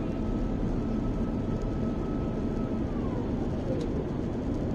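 Airbus A350 cabin noise during descent: a steady roar of airflow and engines. A thin whine held on one pitch glides down in pitch about three seconds in.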